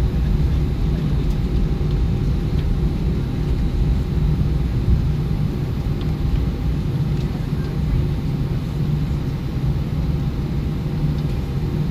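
Airbus A320 taxiing, heard inside the cabin: a steady low rumble from the engines at taxi power with a faint steady hum above it.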